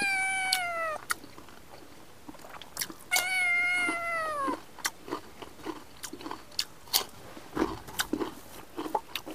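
A cat meowing twice in long, drawn-out meows, the second one longer and falling in pitch at its end. Between the meows come crisp crunching and chewing sounds from bites of raw cucumber.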